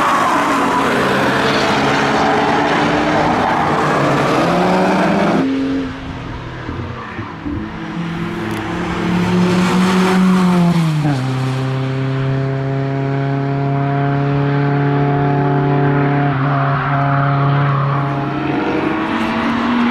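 Cars driven hard passing close by. First a BMW E36 coupe's engine runs loud under throttle and cuts off suddenly about five seconds in. Then a VW Golf Mk2's engine rises in pitch, drops sharply about eleven seconds in, and holds a steady note for several seconds before fading near the end.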